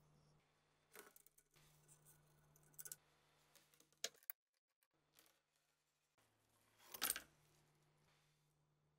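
Faint, sparse handling noises: a few short clicks and taps of small metal parts, then a louder brief scrape about seven seconds in.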